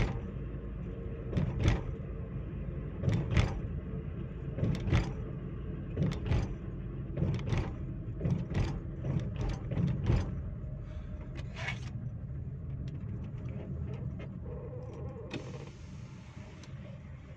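Road and engine rumble inside a Chevrolet Spin LT 1.2 driving on a concrete toll road, with sharp knocks, often in pairs, every second or so for the first twelve seconds. The rumble then eases as the car slows, and a steady hiss comes in about fifteen seconds in.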